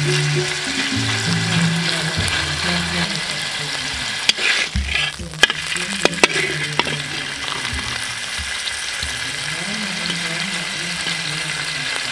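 Beef burger patty sizzling in a flat metal pan, a steady frying hiss. In the middle a metal spatula scrapes and taps against the pan several times.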